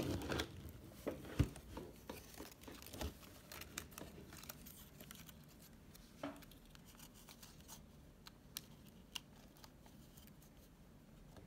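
Scattered light clicks, taps and knocks of hands handling a laptop's plastic casing and keyboard deck, with one sharper knock about one and a half seconds in.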